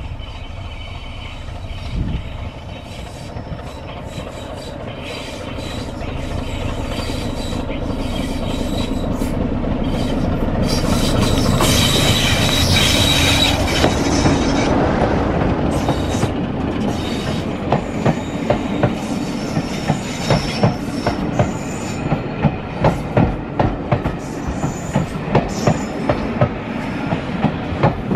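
BR Class 33 diesel locomotive D6566 approaching and passing close, loudest about twelve to fourteen seconds in, with a thin high-pitched squeal as it goes by. Then the coaches roll past with a steady clickety-clack of wheels over the rail joints, clicks coming in quick pairs.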